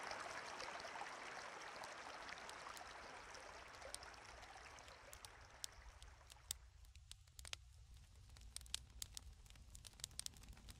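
Flowing water like a stream, a steady rush that fades out over the first half, followed by scattered sharp clicks.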